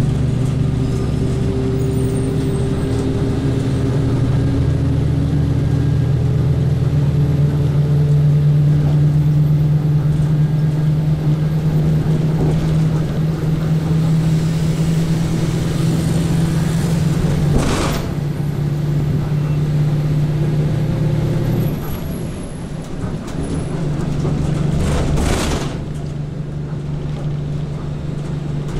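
Overland truck's engine running steadily at road speed, heard from inside the vehicle, with a strong low hum that drops and quietens about three-quarters of the way through. A few brief whooshes of oncoming traffic passing.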